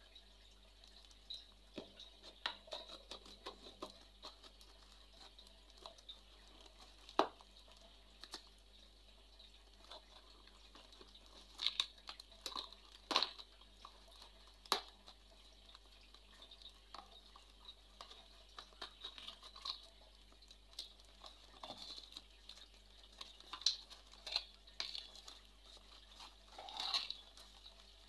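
Faint handling noises: scattered light clicks, taps and knocks with some rustling, a few sharper knocks standing out among them.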